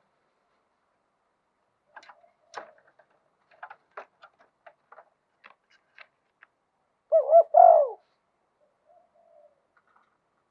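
Spotted dove cooing: a loud two-part coo about seven seconds in, then a faint soft coo. It comes after a scatter of faint clicks.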